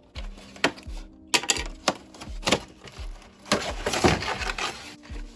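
Damaged cardboard doll box being pulled and torn open by hand: a run of sharp cracks and rips, with a longer tearing stretch about four seconds in. Soft instrumental music plays underneath.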